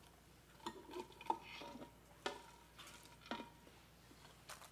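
Clear measuring cup scraping and knocking against the Ninja Foodi's inner pot while popped popcorn is scooped out, about five light knocks, some with a short ring.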